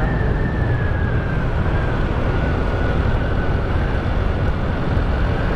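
Steady rush of wind over the microphone and road noise from a motor scooter riding along the road, with a faint high whine that slowly falls in pitch.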